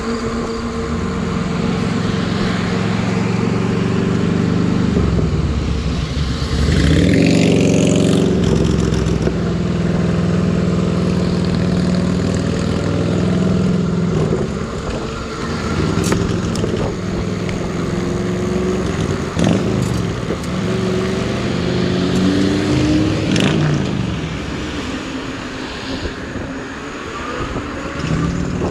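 Steady hum and road noise from riding a 750-watt fat-tire electric bike on pavement. About seven seconds in, a louder swell rises and falls in pitch, and a few sharp clicks come later.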